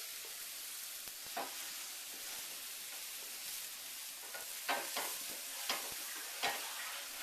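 Mushrooms sautéing in a hot frying pan with a steady sizzle. A utensil stirs and scrapes in the pan once early on and several times in the second half.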